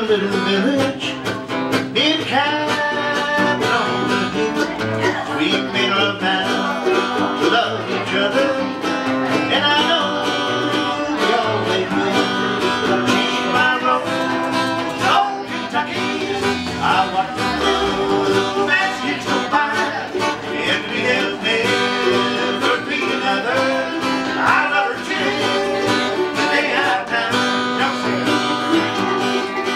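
Acoustic guitar and mandolin playing a bluegrass tune together, the guitar strumming rhythm under the picked mandolin.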